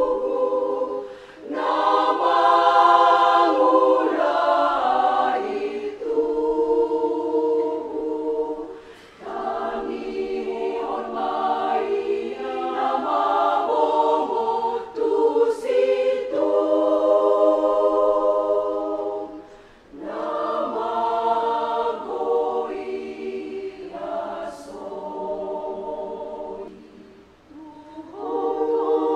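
A women's church choir of about 35 voices singing a hymn in parts, with no instruments audible; the sung phrases last a few seconds each and break off briefly about every four seconds for breath.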